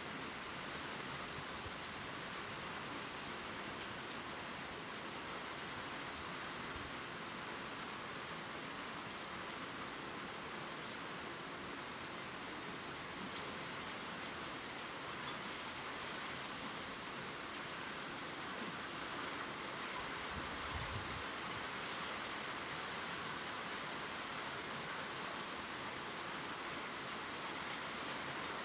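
Steady gentle rain pattering on leaves, with scattered faint drop ticks. A soft low thump about two-thirds of the way in.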